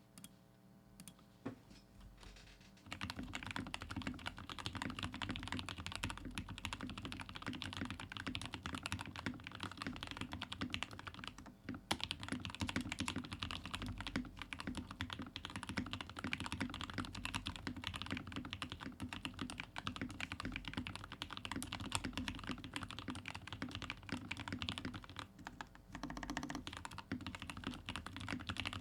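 Typing on a Royal Kludge RK61 60% mechanical keyboard with stock Gateron Milky Yellow linear switches and GMK ABS keycaps, modded with lubed stabilisers, a tape mod and extra foam in the case. A few single keystrokes come first, then fast, steady typing from about three seconds in, with brief pauses near the middle and near the end.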